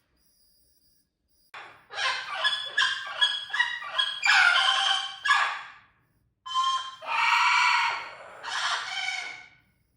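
Amazon parrot calling loudly: a quick run of short squawks, then several longer, drawn-out calls.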